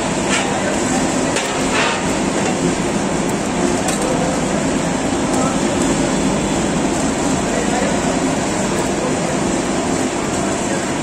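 Mini blast furnace in operation: a loud, steady rushing of the air blast through the burning fuel bed, with a steady low hum underneath. A few metal clinks from a poker rod at the open door come in the first few seconds.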